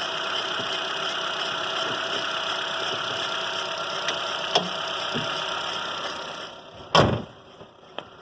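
The 2019 Chevrolet Onix LT's 1.0 engine idling steadily with a few faint clicks, the strange noise that persists even though the dealer's mechanics replaced nearly the whole engine. The engine sound dies away about six and a half seconds in, and a single loud thump follows shortly after.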